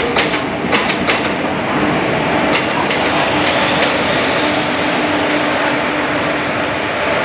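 Train running on the track: a loud, steady rumble with a few sharp clicks in the first three seconds.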